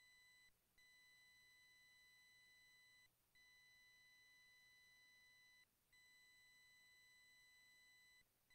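Near silence in which a faint, steady electronic tone sounds, cutting out briefly about every two and a half seconds and starting again.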